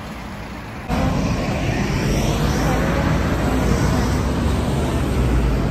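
Road traffic: cars passing on a junction, a steady rumble of engines and tyres that becomes louder about a second in.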